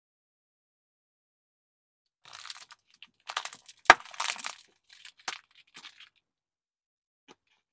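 Car tyre crushing small objects: irregular crackling and crunching, loudest in the middle with one sharp crack, then a few fainter crackles.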